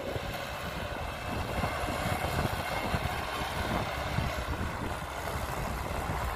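Diesel engine of heavy earthmoving machinery running steadily with a deep rumble.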